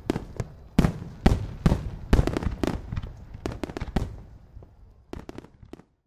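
Fireworks going off: a quick run of sharp bangs, each followed by a short rumble, thinning out and growing fainter, with a few last quieter cracks near the end.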